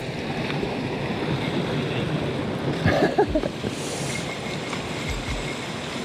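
Small mountain stream running over rocks in a steady rush of water, with a short louder sound about three seconds in.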